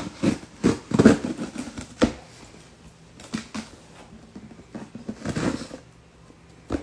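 Packing tape on a cardboard shipping box being cut open with a small handheld cutter: irregular scrapes, knocks and rustles of cardboard, with a longer scratchy rasp about five seconds in.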